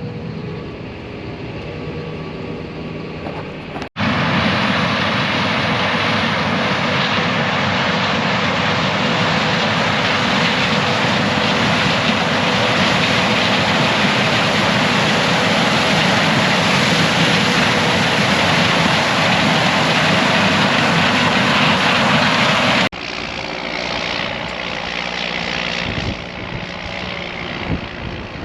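Farm machinery running in three cut-together stretches of steady machine noise. The middle stretch, starting and stopping abruptly about four seconds in and near the end, is louder and more even than the rest.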